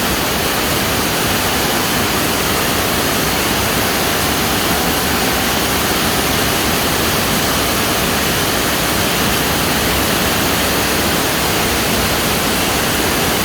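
Heavy rain pouring down in a steady, unbroken hiss of water.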